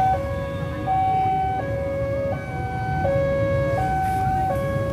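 Railway level-crossing warning alarm sounding a steady high–low two-tone pattern, switching pitch about every three-quarters of a second: the barriers are down and a train is approaching. Under it, the low rumble of waiting motorbikes and cars idling.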